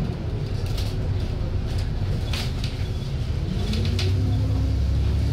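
Alexander Dennis Enviro 400 double-decker bus engine running as the bus drives, heard from inside the passenger saloon: a steady low rumble whose pitch rises a little past three seconds in as it picks up speed, with scattered clicks over it.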